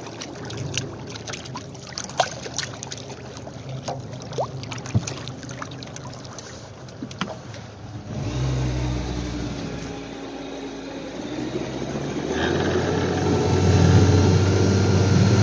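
Outboard motor running steadily, pushing a metal flat-bottom boat loaded down with carp. For the first half, water slaps and splashes along the hull over a faint drone. The engine drone comes up clearly about eight seconds in and grows louder again near the end.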